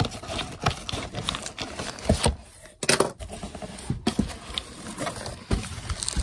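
A cardboard shipping box being handled and its flaps pulled open: irregular scraping and rustling with scattered knocks, a sharper knock about three seconds in.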